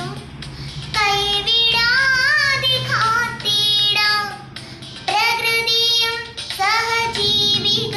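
A young girl singing solo, in long sung phrases with held, wavering notes and short breaths between them.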